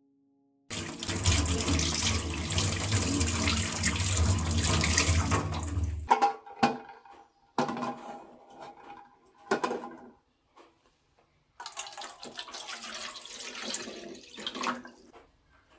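Water running hard from a kitchen tap for about five seconds. Then a few clunks as an aluminium saucepan with eggs is set on a gas stove, and near the end water is poured from a plastic jug into the pan over the eggs.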